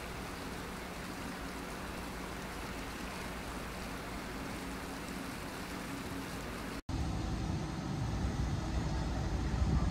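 Steady seaside hiss of wind and water with a faint low drone as a car ferry approaches across the bay. After a sudden cut about seven seconds in, a louder, rougher low rumble of wind and traffic at the ferry terminal.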